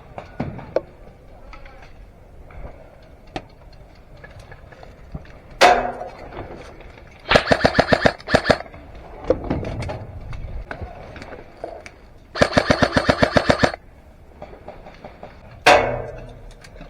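Airsoft gun firing two short full-auto bursts, a rapid even rattle of about ten shots a second, the first about seven seconds in and the second about twelve seconds in. A single sudden loud sound comes before the first burst and another comes near the end.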